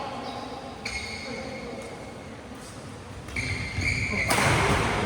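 Badminton rally on an indoor court: shoes squeaking on the court floor and a sharp racket hit on the shuttlecock about a second in. From about three and a half seconds, voices shouting and louder noise in the hall.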